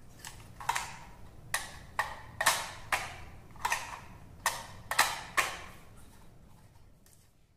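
Hard plastic crocodile-dentist toy clicking as it is handled and its teeth are pressed down: a string of sharp, irregular clicks, about one or two a second, trailing off near the end.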